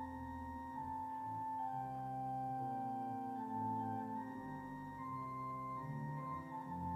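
Organ music: slow, sustained chords that change about once a second.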